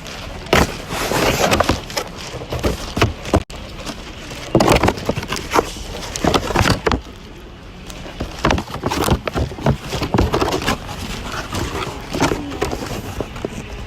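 An irregular run of clacks, knocks and rustles, loudest in clusters about half a second in and again from about four and a half to seven seconds and eight and a half to ten and a half seconds.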